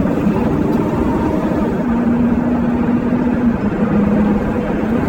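Car driving fast down a road: steady engine drone and road noise. The engine tone drops slightly in pitch about three and a half seconds in.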